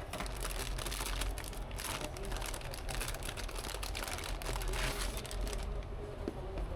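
Rustling and crinkling with many small clicks, over a steady low hum.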